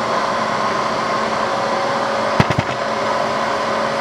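Bridgeport Series 1 vertical milling machine with its 2 HP variable-speed head running steadily, spindle in the low range: an even mechanical hum with a few steady tones in it. A sharp click and a couple of lighter ones come about two and a half seconds in.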